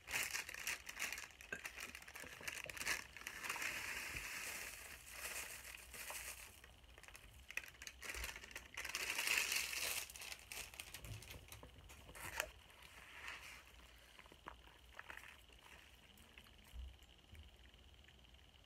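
Packaging crinkling and rustling as it is handled, in dense bursts for about the first thirteen seconds, then only a few faint rustles.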